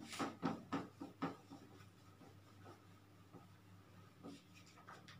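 Whiteboard duster wiping a whiteboard in about five quick scratchy strokes during the first second and a half, then a few faint scattered rubs.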